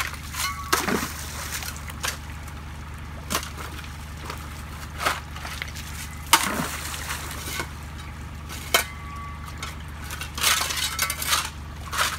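A long-handled tool splashing and scraping in the muddy water and silt of a ditch bottom as it is levelled, in irregular strokes every second or two. Under it runs the steady low hum of an idling tractor engine.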